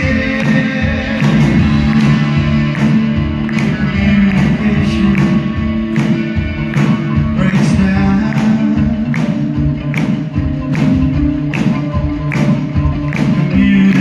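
New wave rock band playing live through a stage PA: drums keep a steady beat under electric guitars and keyboards.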